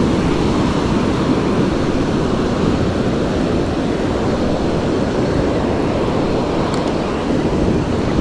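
Ocean surf breaking and washing up a sandy beach, a steady heavy rush, with wind rumbling on the microphone.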